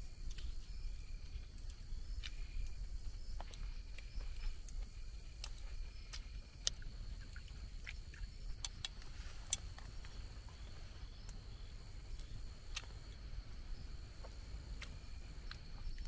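Outdoor ambience of insects trilling steadily, with scattered sharp clicks and ticks and a steady low rumble underneath.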